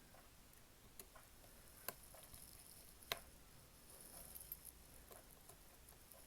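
A few faint, sharp clicks of a small screwdriver and tiny screws against the phone's internal parts as two screws are fitted, over near-silent room tone; the sharpest click comes about three seconds in.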